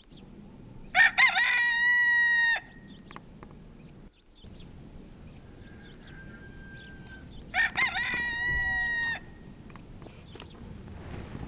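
Pavlovskaya rooster crowing twice, about six seconds apart: each crow opens with a few short choppy notes and ends in a long held note of about a second and a half. The first crow is the louder.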